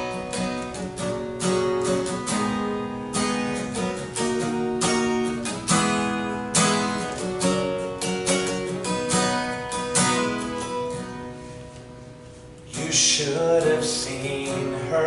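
Acoustic guitar playing the strummed chord introduction to a slow song, each chord left ringing. About thirteen seconds in, a man's singing voice comes in over the guitar.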